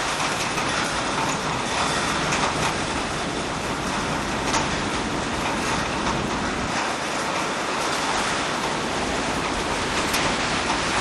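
Strong storm wind blowing as a steady, even rush, with wind noise on the microphone.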